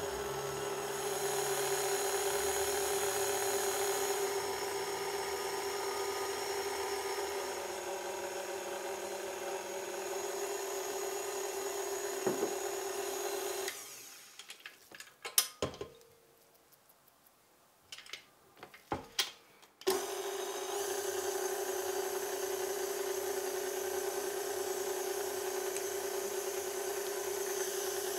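KitchenAid stand mixer running with a steady motor hum, its flat beater working a thick cooked dough of flour, butter and water in a glass bowl. The motor stops about halfway through, a few sharp clicks and knocks follow, and about six seconds later it starts again and runs on steadily.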